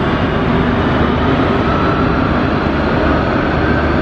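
Boeing 737-200 jet engine (Pratt & Whitney JT8D) spooling up during start-up: a loud, steady rushing roar with a faint whine that slowly rises in pitch.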